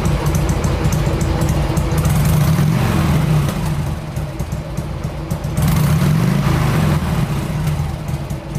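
1997 Harley-Davidson Sportster XL1200S air-cooled V-twin, single-plug, running through its stock mufflers at an idle of about 900 rpm. The throttle is blipped twice, about two and six seconds in, and each time the pitch rises and falls back to idle.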